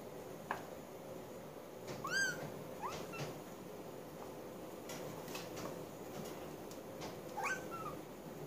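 Kitten meowing: three short, high-pitched mews, about two seconds in, about three seconds in and near the end.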